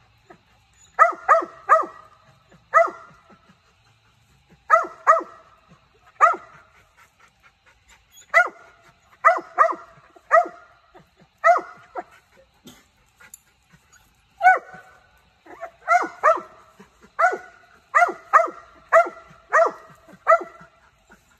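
Mountain Cur barking treed at the base of a tree, baying up the trunk at quarry it has run up it. The barks are short and repeated, mostly in quick bursts of two to four, with pauses of a second or two between bursts.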